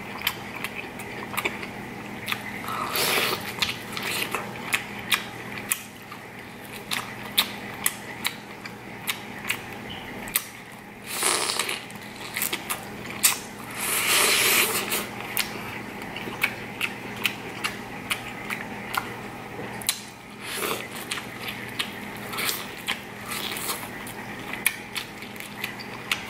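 Close-miked eating of corn on the cob: teeth crunching through the kernels, with many sharp wet mouth clicks while chewing. Louder crunchy bites come about 3, 11, 14 and 20 seconds in.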